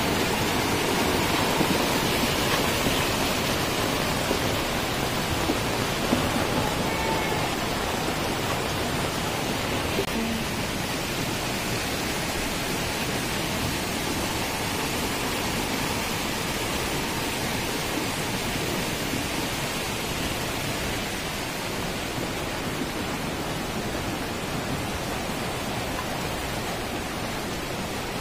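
Steady rushing of muddy floodwater in heavy rain, a continuous wash of noise that slowly grows a little quieter.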